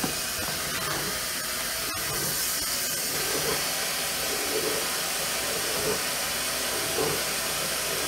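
Steady hiss of water rushing through the supply plumbing as a 50-gallon electric water heater tank refills under mains pressure.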